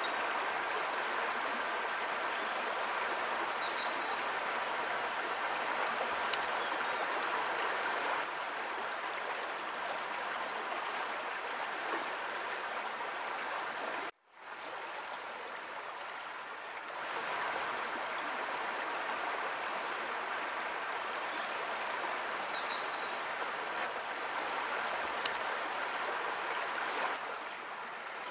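Steady rush of running water, with a small bird's quick, high, thin chirps coming in short runs in the first few seconds and again in the second half. The sound drops out for a moment near the middle.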